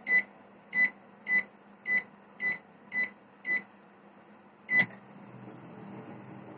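Convection microwave oven's control panel beeping seven times in quick succession as the 170 °C preheat is keyed in, then one louder beep with a click about five seconds in, after which the oven starts running with a steady low hum as it begins preheating.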